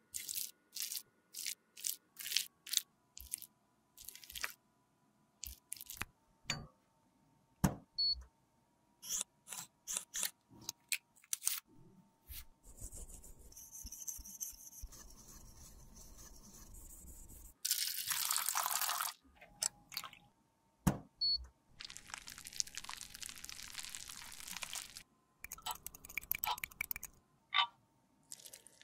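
A knife blade cutting and scraping through crumbly broken lipstick, a run of short crunchy strokes over the first twelve seconds. Then come longer stretches of hissing noise, one loud burst in the middle, and a few light clicks near the end.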